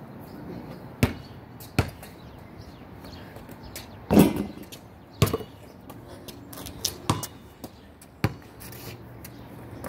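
A basketball bouncing: about seven sharp single thuds spaced irregularly, the loudest a ringing bang about four seconds in as a shot hits the hoop.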